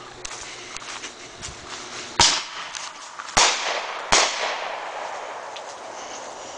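Fireworks going off: three sharp bangs a little over a second apart, each trailing off in an echo.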